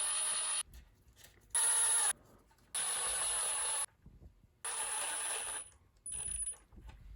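Cordless impact driver spinning bolts back into their holes in five short bursts, each a steady whir with a high whine, the bolts turning in freely.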